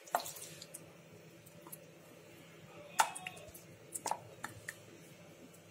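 A few sharp clinks and knocks of a glass bowl and utensil against a nonstick frying pan as pieces of marinated chicken are put into the oil, the loudest about three seconds in, over a faint steady kitchen hum.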